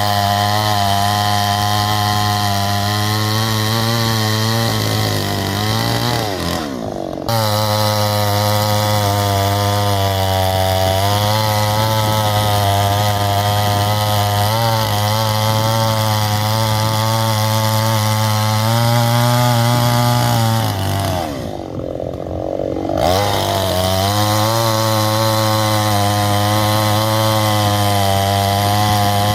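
Petrol chainsaw running steadily at high speed. Twice, about six seconds in and again about twenty-one seconds in, its engine speed drops briefly and then climbs back up.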